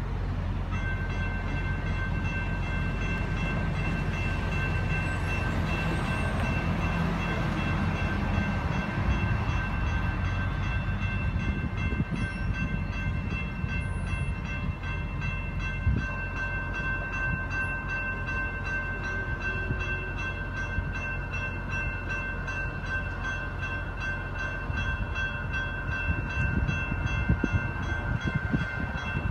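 General Signals Type 2 electronic crossing bells start ringing about a second in and keep ringing steadily: the crossing is activating for an approaching train.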